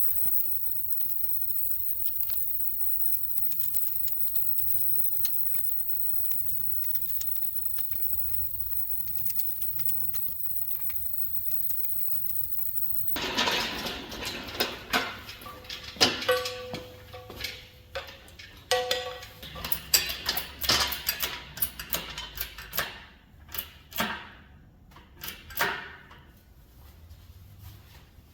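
Steady low background hum for about the first half, then a dense run of sharp metallic clinks and clatters from tools and metal parts being handled, some ringing briefly.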